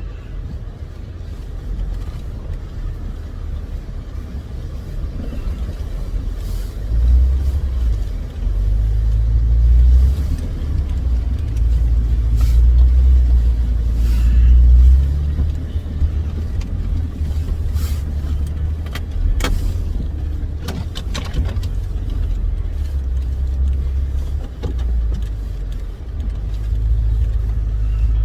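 Jeep Wrangler JK engine running and revving as it drives a rough off-road trail. The pitch rises and falls with the throttle, and a few knocks and rattles come through in the middle.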